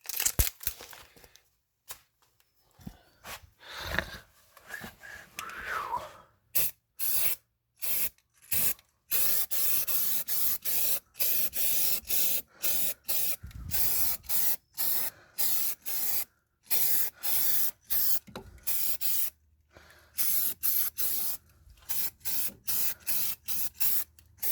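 Aerosol spray-paint can spraying in many short bursts, each a sharp hiss with brief pauses between, starting about six seconds in after some quieter handling sounds.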